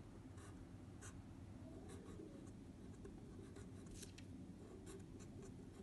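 Felt-tip pen writing on paper: faint, short scratches of separate pen strokes at an irregular pace.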